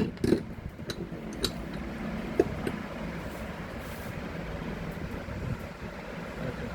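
A few light clicks and knocks in the first second and a half and one more about two and a half seconds in, from parts and tools being handled during a power-tool teardown, over steady background noise; the cutter's motor is not running.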